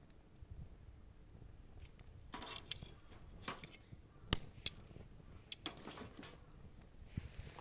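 A small wood fire being tended: irregular snaps, clinks and short rustles of sticks and fire tools, with one sharp click about four seconds in.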